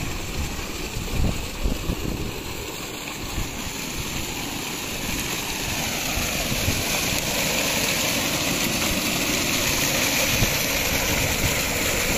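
Water gushing from a tubewell's discharge pipe and splashing into a concrete water tank: a steady rushing that grows louder partway through.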